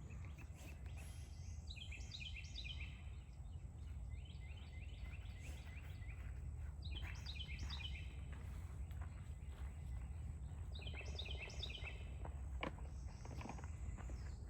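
A songbird singing, repeating a short phrase of quick, falling high notes about every two to four seconds, over a steady low rumble.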